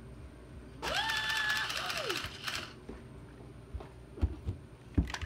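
Electronic engine-rev sound effect from a Tonka Chuck toy truck's small speaker: a tone that rises, holds for about a second and slides back down, over a rushing noise. A few light knocks follow near the end.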